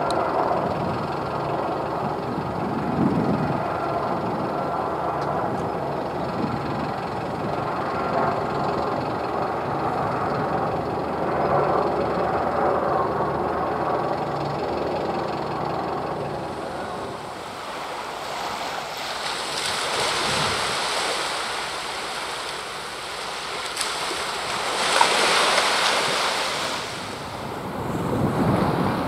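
AAV7 amphibious assault vehicle's diesel engine running as it moves through the sea, a steady low rumble mixed with the wash of its wake. About halfway through the rumble fades and a rushing hiss of wind on the microphone swells twice.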